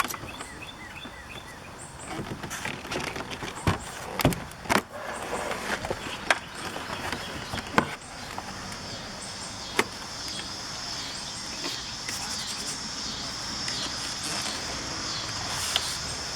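A run of sharp knocks and clicks from hands and tools working on a car door, clustered in the first half. Later comes a steady, evenly pulsing high insect chirping.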